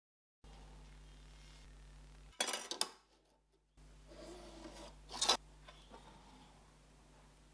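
A metal scribe scratching and a plastic drawing template clattering against a steel knife blank and wooden bench: two short scratchy bursts, a couple of seconds apart, over a steady low hum.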